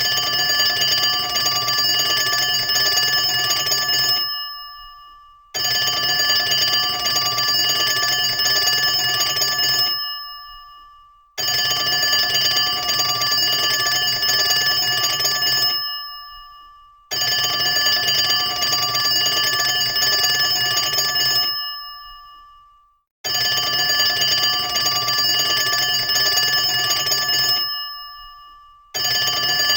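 Old-style telephone bell ringing: five long rings of about four and a half seconds, each trailing off into a short pause before the next, with a sixth starting right at the end.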